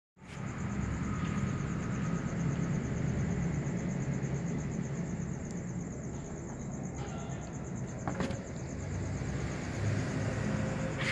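A cat eating dry kibble from a plastic tub, with a few short crunches, over a steady low rumble. A steady high-pitched trill runs behind it.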